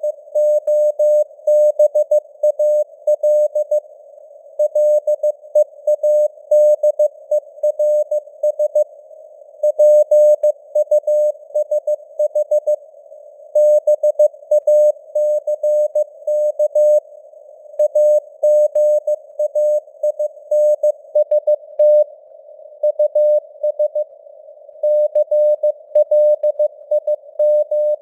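Morse code (CW) at 15 words per minute: a single steady tone keyed in dots and dashes, with short pauses between words. It sits in a narrow band of simulated radio hiss, and its strength rises and falls slightly as simulated fading (QSB).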